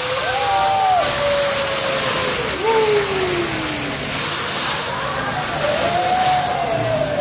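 Hibachi griddle flame flare-up: a steady rushing hiss, with diners whooping in long, gliding 'woo' calls several times over it.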